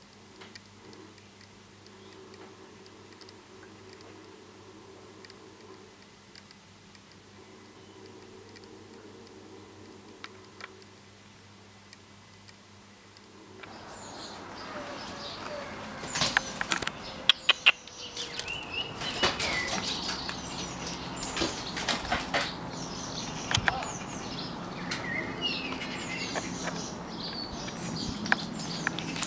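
A young magpie trapped in a greenhouse, its wings flapping with sharp knocks against the glass panes, strongest about halfway through, while birds chirp. Before that there is only a faint low hum.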